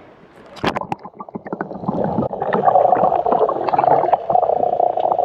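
Water heard through a camera's waterproof housing as it is dipped into the sea: a few sharp knocks and splashes as it goes under, a little under a second in, then a steady muffled underwater rush with gurgles and small clicks.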